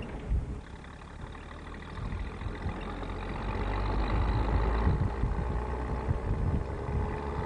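Car engine and road noise heard from inside a moving car, growing louder about two seconds in, with a faint whine that rises slowly in pitch.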